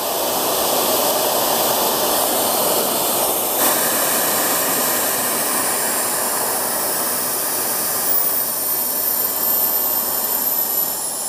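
High-speed brushless hair-dryer motor spinning its impeller, a loud steady rush of air with a very high whine. Over the last few seconds the whine steps down in pitch as the supply voltage is turned down and the motor slows.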